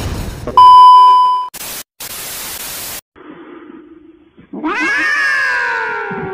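A loud steady beep lasting about a second, then a short burst of static hiss, then a cat's long drawn-out meow that starts high and falls in pitch.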